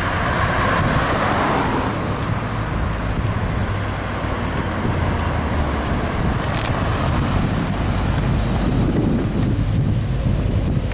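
ABT-tuned Audi RS4-R Avant's twin-turbo V6 exhaust giving a steady low rumble as the car drives slowly past and pulls away. In the first couple of seconds another car passes with a hiss of tyre noise.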